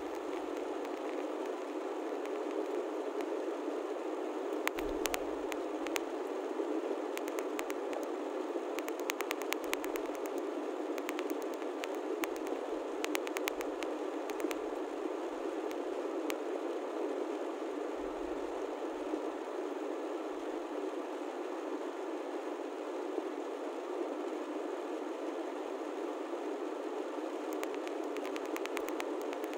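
Steady road and engine noise inside a moving car's cabin, an even rushing hiss with scattered faint clicks.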